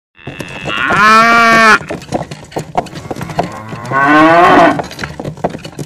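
A cow mooing twice: two drawn-out moos about three seconds apart, the first about a second in and the second about four seconds in, over a scatter of light clicks.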